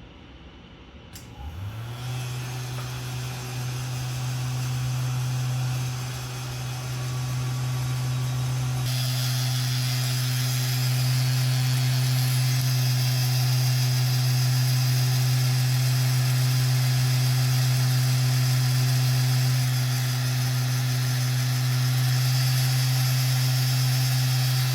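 Electric fan heater running: a steady low hum with the rush of its fan starts about a second in, turns hissier about nine seconds in, and cuts off abruptly as it is switched off at the end.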